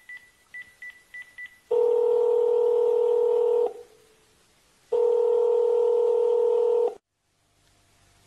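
A quick run of about five telephone keypad beeps as a number is dialled. Then come two long, steady ringing tones of an outgoing call, each about two seconds. The sound cuts off, and a faint line hiss with a low hum comes in as the call connects.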